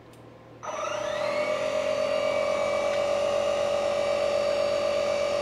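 Small electric tire inflator switching on about half a second in, spinning up with a brief rising whine and then running steadily on one pitch as it pumps up an inner tube. A faint click comes just before it starts.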